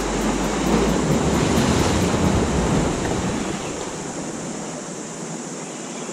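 Sea surf washing in over shoreline rocks, swelling about half a second in and easing off after about three seconds, with wind buffeting the microphone.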